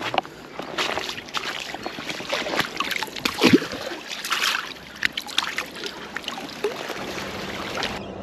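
Water splashing and sloshing with many irregular knocks and clicks of handling, the loudest about three and a half seconds in.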